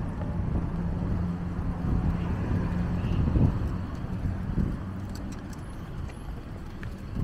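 A motor vehicle's engine running close by, a steady low hum that weakens about five seconds in, over outdoor street noise.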